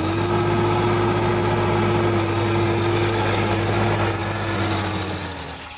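Sonalika DI 50 RX tractor's diesel engine running steadily as the tractor drives through muddy ground, its pitch dipping and its level dropping as it eases off near the end.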